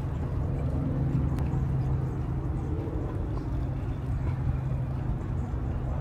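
A steady low mechanical hum with a noisy background, like a running engine.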